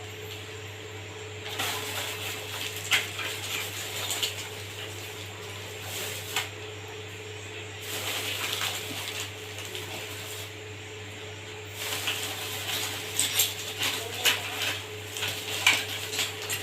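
Scattered small clicks, knocks and rustles of hard parts being handled while working on an RO water purifier, over a steady low hum.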